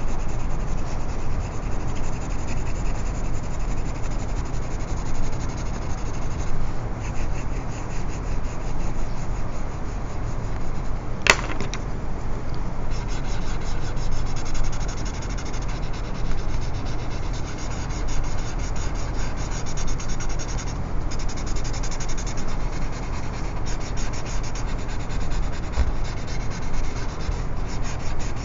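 Graphite shading rubbed back and forth on drawing paper, with a dark drawing pencil and a paper blending stump working the dark cast shadow of a drawing. A single sharp click comes about a third of the way in, and the rubbing sounds scratchier after it.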